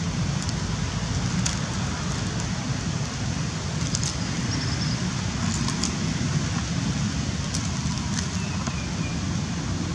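Steady low rumble, with scattered sharp crinkles of a plastic snack wrapper as a macaque handles it and bites at it.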